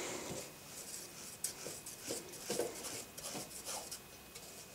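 Cloth buffing wheel being pressed and twisted by hand onto a bench polisher's threaded tapered spindle: faint rubbing and scraping with scattered small clicks.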